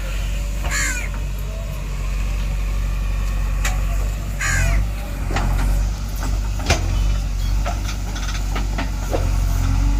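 A crow cawing, once about a second in and again about four and a half seconds in, over the steady low running of a JCB 3DX backhoe loader's diesel engine. A few sharp knocks come in the second half.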